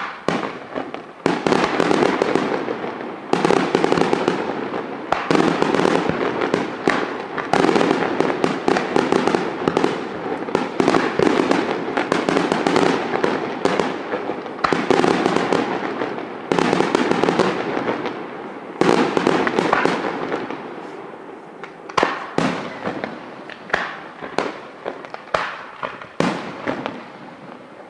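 Aerial firework shells bursting in a near-continuous barrage of bangs. Near the end it thins to separate bangs about a second apart.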